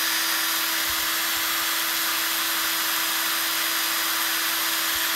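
CO-WORKS 12 V cordless impact driver running free with no load, its motor holding a steady speed with an even whine and no hammering. It is a trigger test, and the tool works normally.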